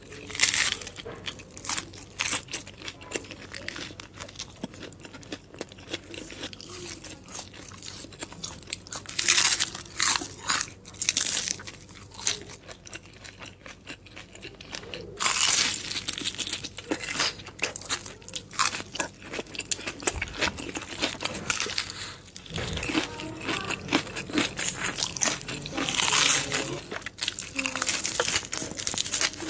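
A person biting into and chewing crunchy food close to the microphone: repeated crackling crunches, with several louder bites spread through the stretch and chewing between them.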